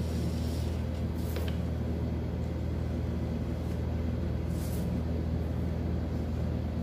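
A steady low hum of room background noise, with two faint, brief rustles about a second and a half and nearly five seconds in.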